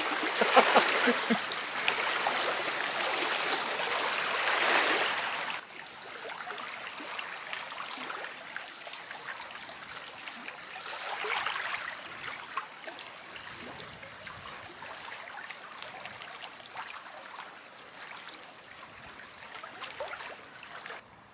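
Lake water lapping and trickling over the stones of the shoreline, a steady wash that drops abruptly to a quieter level about five and a half seconds in.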